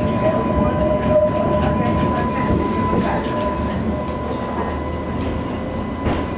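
Steady rumble of a moving city bus heard from inside the passenger compartment, with a constant high hum running over it.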